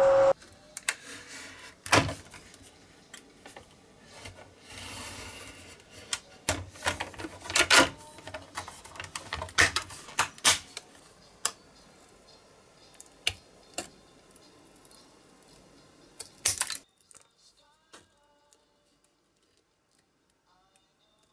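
Thin vacuum-formed plastic sheet being handled and cut on a cutting mat: crackling and rustling of the plastic with sharp clicks and snaps scattered irregularly. About seventeen seconds in it drops to near silence, with only a few faint ticks.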